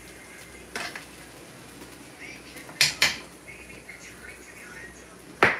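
Metal spoon and glass pot lid clinking against a cooking pot while white rice is stirred: four sharp clinks, a close pair about three seconds in and the loudest just before the end.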